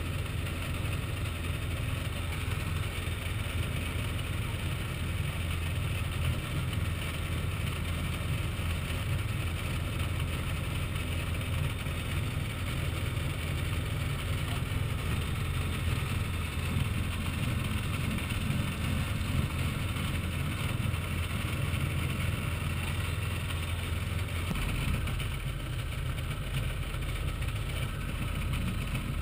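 Microlight airplane's piston engine and propeller running steadily at taxi power, heard from inside the cockpit canopy. About 25 seconds in, the engine note drops lower as it is throttled back.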